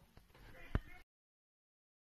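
Faint background hiss with one short sharp click about three quarters of a second in, then dead silence as the recording cuts off about a second in.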